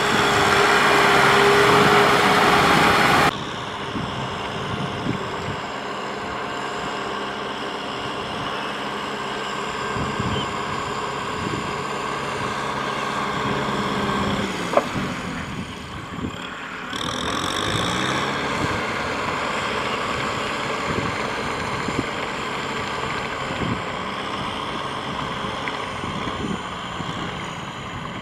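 Kubota M6040SU tractor's diesel engine running steadily as it works through a flooded, muddy rice paddy. The sound is loudest at first, drops abruptly about three seconds in and dips briefly past the middle before running on evenly.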